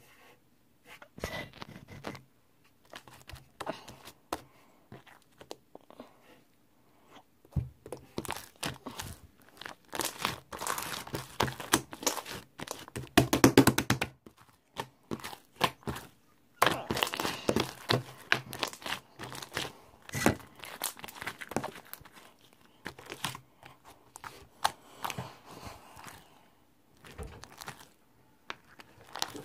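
Close-up handling noises: irregular crinkling and rustling, with scattered knocks and clicks, loudest in stretches a third and two thirds of the way in.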